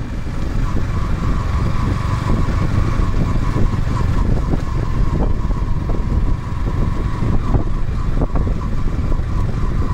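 Yamaha R15M's single-cylinder engine running steadily as the motorcycle rides slowly over a rough rural road, heard from the rider's seat.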